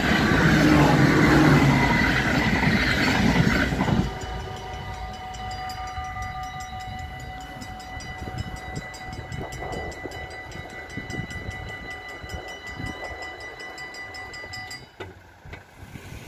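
An NS ICMm intercity electric train rushes past for the first four seconds or so. Then the level crossing's two mechanical bells are heard ringing with a fast, even clatter, until they cut off abruptly about fifteen seconds in as the crossing clears.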